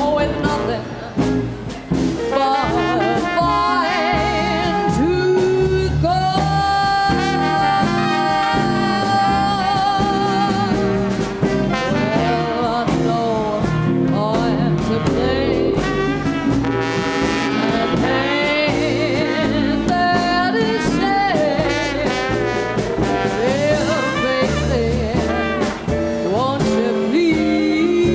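Live jazz band playing: a lead line of long, wavering held notes over bass and drums.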